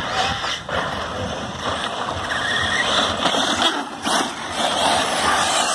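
Radio-controlled buggies and trucks running on a dirt track: a steady rush of motors and tyres on dirt, with a few faint short whines.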